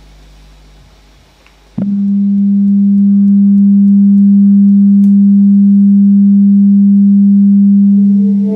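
Sine-wave test tone played through a 12-inch subwoofer cabinet driven by an IRS2092S class D amplifier board: a loud, steady low tone starts suddenly about two seconds in and holds unchanged for over six seconds, with a faint overtone above it. Before it starts there is only a quiet low hum.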